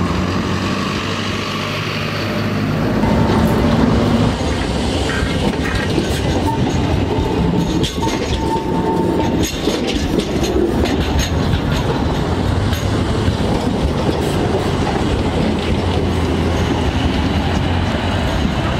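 Electric trams running past on street track: a steady rumble of wheels on rail, with a run of clicks over the rail joints and a faint whine midway.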